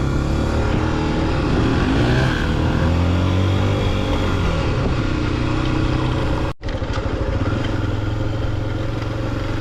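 Motorcycle engine running while riding, its pitch rising and falling with the throttle. The sound cuts out briefly about two-thirds of the way through.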